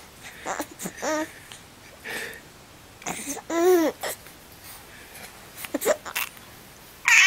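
Baby boy cooing and laughing in short sounds, with a coo that rises and falls about three and a half seconds in. A loud high squeal that falls in pitch starts right at the end.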